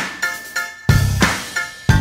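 Background music with a steady drum beat: deep kick-drum thumps, sharper hits and sustained pitched notes.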